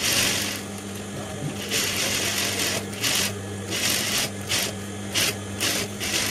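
Industrial sewing machine stitching fabric in short runs that start and stop several times, over a steady motor hum. It is sewing a lining piece to a blouse neck panel around its edge.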